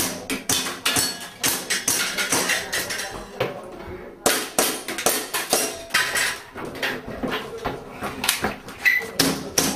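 Airsoft pistol fired in a rapid, irregular string of sharp cracks, several a second, with pellets pinging off small plate targets; there is a short break about four seconds in.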